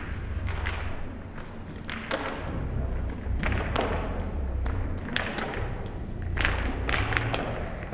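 A dog's paws thudding and tapping on a tile floor as it runs, in irregular strikes that come closer together in the second half, over a low steady rumble.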